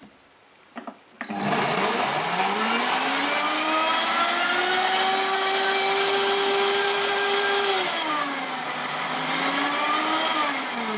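High-speed countertop blender starting up about a second in after a short click, its motor whine climbing in pitch and then running steadily as it purees egg and chopped wild garlic. About eight seconds in the pitch drops and climbs again, and it begins to wind down near the end.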